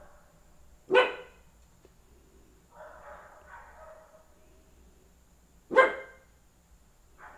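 Small dog barking: two sharp, loud barks, about a second in and near six seconds, with softer, fainter barks in between.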